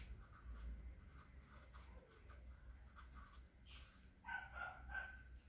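Faint scratching of a felt-tip marker writing words on paper, in near silence. A brief faint animal call sounds about four seconds in.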